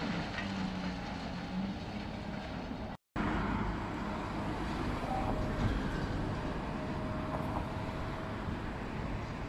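Caterpillar 365B excavator working a demolition crusher jaw on concrete rubble: its diesel engine and hydraulics run steadily under load. The sound cuts out for a moment about three seconds in.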